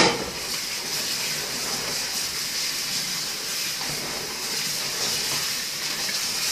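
Kitchen tap running steadily onto cubes of raw tuna in a plastic colander set in a stainless steel sink. The hands turning the fish in the stream rinse off the salt marinade.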